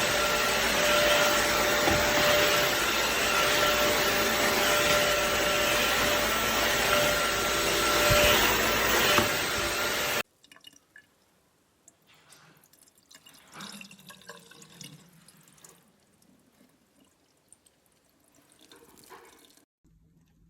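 BISSELL CrossWave wet floor cleaner running, a steady motor noise with two steady whining tones as it draws up water, stopping abruptly about ten seconds in. Faint knocks and handling sounds follow.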